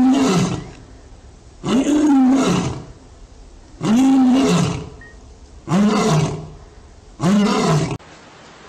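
Male lion roaring: the end of one roar, then four more long roars about two seconds apart, each rising then falling in pitch.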